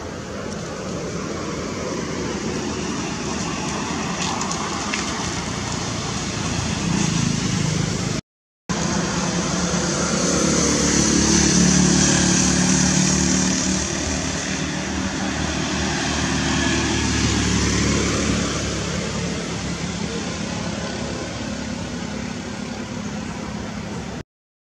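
Road traffic: motor vehicle noise that swells to a peak about twelve seconds in and then fades, the way a car passing by does, with a brief silent cut just after eight seconds.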